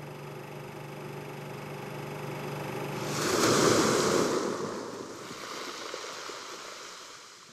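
Sound-design swell for a logo: a low steady drone of several held tones, then a surge of rushing noise about three seconds in that peaks a second later and slowly fades away.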